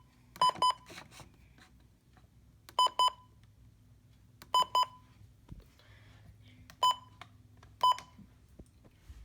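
Short, high electronic beeps from a weather radio's beeper: three quick pairs and then two single beeps, spaced unevenly.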